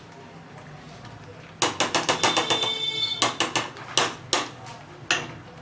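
Steel spoon stirring thick wheat raab in a pan, clicking and scraping against the pan's sides and bottom in quick strokes, several a second, with an occasional brief metallic ring. The stirring starts about a second and a half in and stops shortly before the end, over a faint steady hum.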